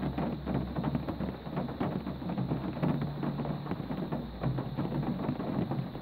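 Steady rain pattering, dense with individual drop hits, over a constant low rumble.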